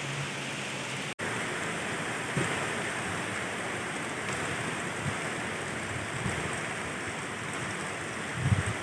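Steady heavy rain falling, an even hiss, cut off for an instant about a second in.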